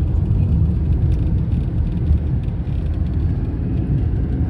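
Steady low road and engine noise of a car being driven, heard from inside the cabin.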